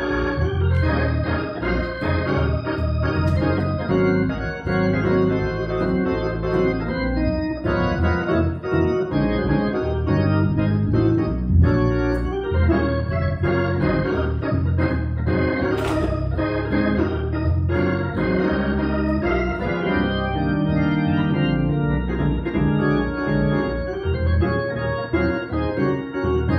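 Organ music: held chords moving steadily over a low bass line.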